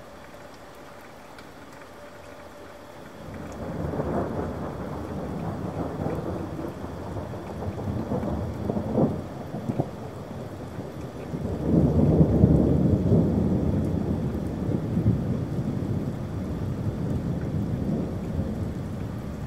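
Thunder rolling over steady rain. Only a soft rain hiss at first, then deep rumbles swell from about three seconds in. The loudest peal comes about twelve seconds in and fades slowly.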